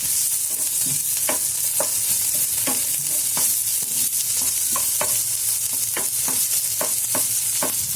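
Onions and ginger-garlic paste sizzling in hot oil in a pan, with a stirring utensil scraping and knocking against the pan about once or twice a second.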